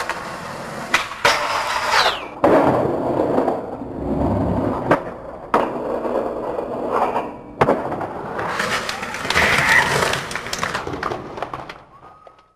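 Skateboard wheels rolling over hard ground, broken several times by sharp wooden clacks of the board hitting the ground; the rolling fades out near the end.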